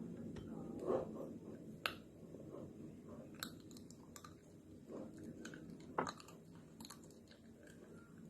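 Close-up biting and chewing of a Magnum ice cream bar, with a few sharp crackles as the chocolate shell breaks.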